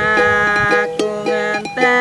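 Music: a small plucked string instrument strumming chords in a steady rhythm, the instrumental accompaniment of a song.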